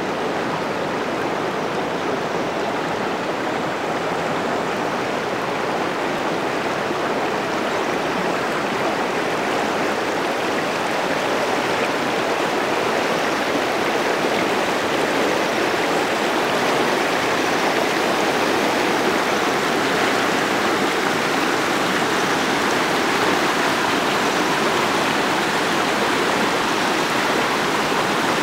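Shallow river rushing steadily over a pebble bed and rapids, a continuous churning of water that grows slightly louder about halfway through.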